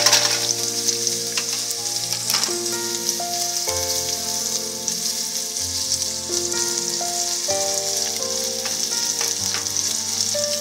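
Sliced onions tipped into hot oil in a pan, a loud burst of sizzling at the start, then steady frying sizzle.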